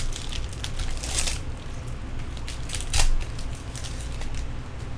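Crinkling of a baseball card pack wrapper being torn open and the cards handled, in a series of rustles with sharper ones about a second in and about three seconds in.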